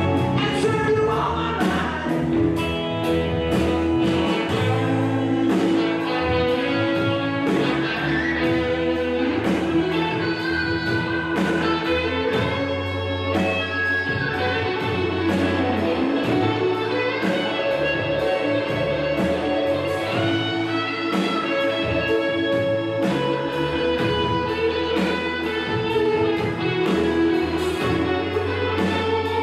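Music: a song with singing over a band, with a steady drum beat throughout.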